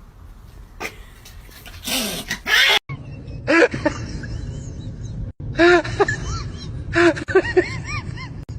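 Animal calls: short pitched cries that rise and fall, coming in groups of two or three across a few quick cuts.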